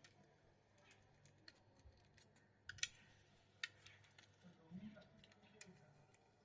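Faint, irregular clicks and taps, the sharpest nearly three seconds in, over a low steady hum.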